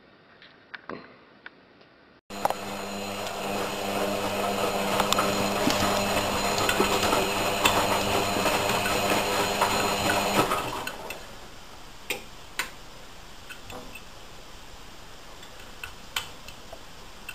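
A front-loading washing machine runs loudly for about eight seconds, a steady motor hum under the drum's tumbling noise. It stops about ten seconds in, leaving a lower steady hum with scattered light taps. Before the machine starts there is a short quiet stretch with a few small clicks.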